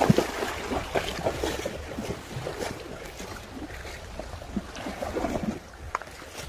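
A horse wading through a shallow creek, water splashing and sloshing around its legs in irregular bursts, heaviest at the start and again about five seconds in, with wind rumbling on the microphone.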